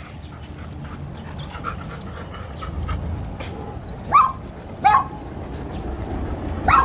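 A dog gives three short, high yips in the second half.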